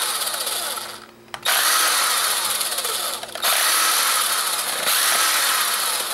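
Cordless impact driver running in bursts as it backs small screws out of a camera's plastic casing, with brief stops about a second in and again after about three seconds.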